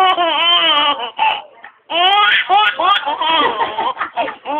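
A toddler laughing in high-pitched squeals, with a short break about a second and a half in.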